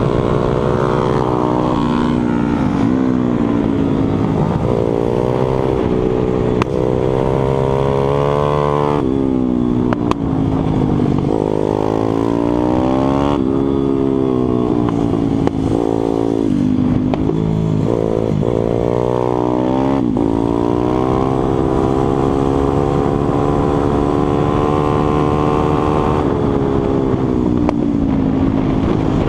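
Onboard sound of a pitbike's single-cylinder four-stroke engine at racing pace. The revs climb through the gears and drop sharply several times as the rider brakes and shifts down for corners. Near the end they are held high and steady along a fast stretch.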